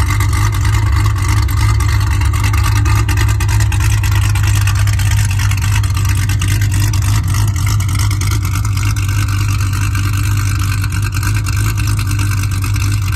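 Chevrolet Camaro's V8 idling steadily through its quad-tip exhaust.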